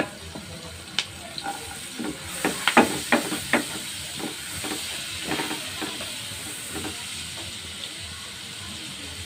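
Diced onion sizzling in melted margarine in a nonstick wok, stirred with a spatula. A quick run of spatula knocks and scrapes against the pan comes about two and a half seconds in, the loudest part, with lighter strokes after.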